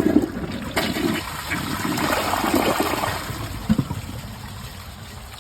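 Glacier Bay dual-flush toilet flushing a thick glove: a sharp clack as the flush is pressed, then water rushing and swirling down the bowl, swelling and fading out after about four seconds. The glove goes down cleanly without clogging.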